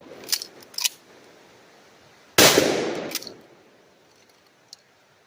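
A single gunshot from a shoulder-fired gun about two and a half seconds in, dying away over about a second. It is preceded by two short clicks.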